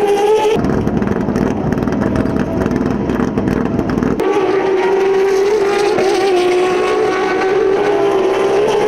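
Turismo Carretera race car engines running at high revs. The sound changes abruptly about half a second in to a rougher, deeper engine noise, then about four seconds in to a steady high-revving note that wavers slightly.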